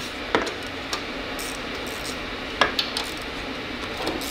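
Steady spraying hiss of cleaner being sprayed around the repaired oil pan drain plug, with a few short sharp clicks.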